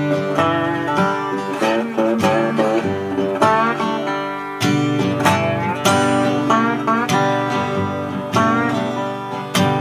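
Acoustic guitar playing the instrumental intro of a folk song, with chords strummed about once a second and no singing.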